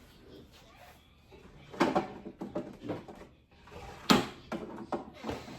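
Things being handled in a refrigerator: a run of knocks and clunks as items and drawers are moved, the loudest a sharp knock about four seconds in.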